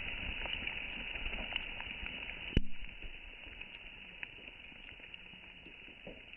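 Dirt and debris from a black-powder blast pattering down, slowed down, with scattered clicks and one sharp thud about two and a half seconds in, after which the patter fades.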